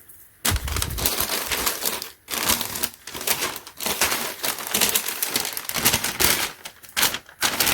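Plastic packaging crinkling and rustling in irregular bursts as it is handled and opened, with short pauses about half a second in and just after two seconds.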